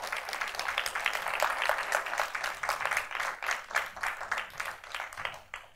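Audience applauding, a dense run of many hands clapping that thins out near the end.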